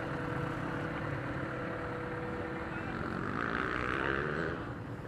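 Motorcycle engines running steadily, with indistinct voices of people nearby about three to four seconds in.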